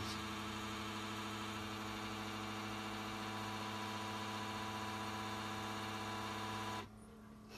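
Keurig K-Compact coffee maker humming steadily as it brews a cup, then cutting off suddenly near the end.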